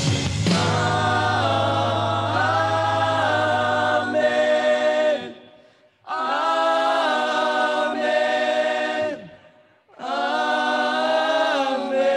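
Worship team voices singing a worship song in long held chords. A low bass note beneath them stops about four seconds in, leaving the voices alone. The singing breaks off twice for a moment between phrases.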